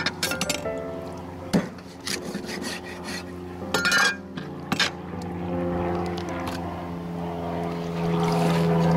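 A cleaver chopping through a catfish onto a plastic cutting board: a series of sharp, separate chops over the first five seconds or so, over background music with held notes. Near the end a louder rushing sound rises, like water moving.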